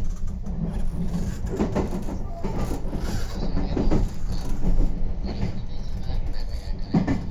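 Meitetsu 3500 series electric train running, heard from on board: a steady low rumble with a few sharp clacks of the wheels over rail joints.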